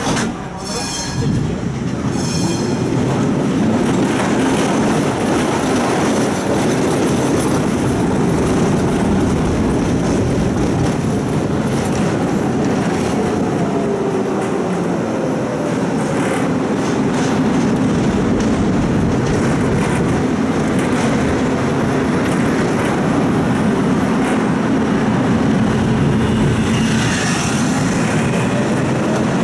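Budapest tram heard from inside the car, with a few clicks and knocks in the first seconds, then pulling away from a stop and running along the street: a steady rumble of steel wheels on rails and traction motor. A brief high wheel squeal near the end.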